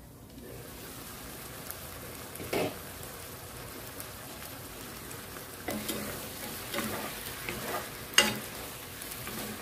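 Pansit canton noodles and pork sizzling steadily in a stone-coated pan as the last of the liquid cooks off, the sizzle growing louder about half a second in. A wooden spatula knocks and scrapes against the pan as the noodles are stirred, several times, with the sharpest knock about eight seconds in.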